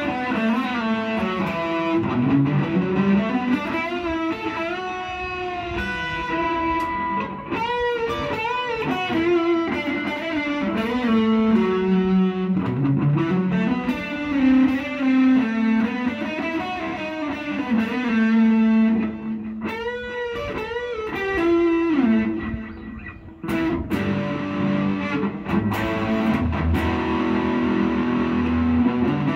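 Red SG-style electric guitar played solo: melodic lead lines of sustained single notes, with string bends and vibrato around a third and two thirds of the way through.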